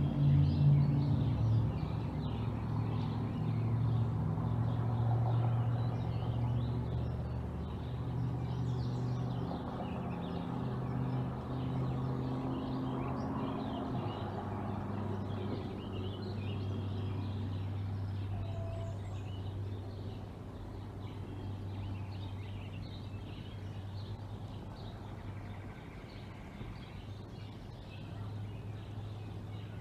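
Outdoor ambience: a steady low engine drone that shifts in pitch a second in and again about halfway, under scattered small bird chirps.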